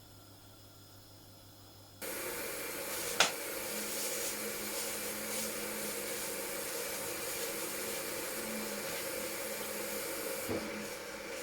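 Steady whooshing hiss of a running kitchen appliance, starting abruptly about two seconds in, with one sharp click soon after.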